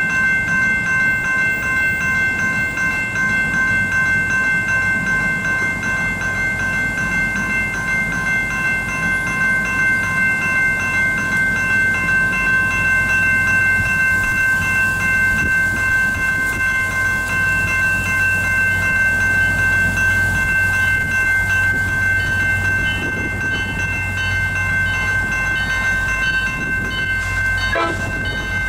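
Railroad crossing warning bells ringing continuously, a steady high-pitched ringing that signals an approaching train while the gates lower. A low rumble grows underneath it in the second half.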